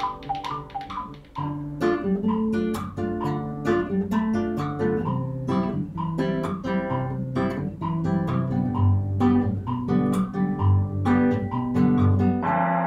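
Nylon-string classical guitar playing quick plucked notes over bass notes, as part of a layered ensemble piece. Near the end a gong is struck and left ringing.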